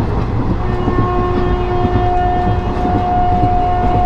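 Passenger train running with a steady rumble of wheels on track. Under a second in, the train's horn starts one long steady note that holds past the end.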